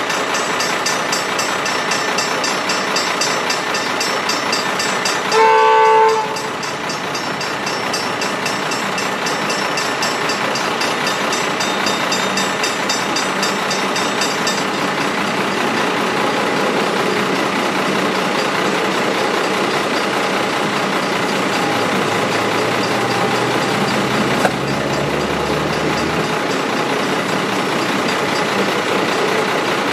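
Electric suburban train sounds a short horn blast about five seconds in, the loudest sound here, then approaches and runs through the level crossing with a growing rumble of wheels on rails. Crossing bells ring quickly in the background until about halfway, then stop.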